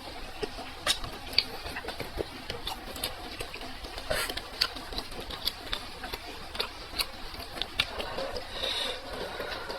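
Close-miked chewing and mouth smacking of a person eating, a run of irregular wet clicks with a couple of brief louder crunchy or slurping moments.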